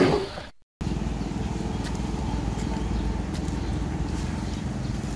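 A growling roar sound effect fades out in the first half second, followed by a short silent gap. Then an engine starts being heard, running steadily at idle with an even low pulse.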